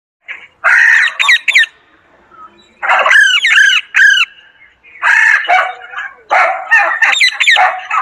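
Alexandrine parakeet giving loud, harsh squawking calls in four bursts, each a run of quick rising-and-falling notes, with short pauses between.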